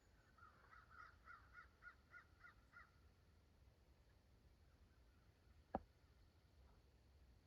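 A faint bird calling in a quick run of about eight short notes, roughly three a second, then fainter calls. About six seconds in comes a single sharp click.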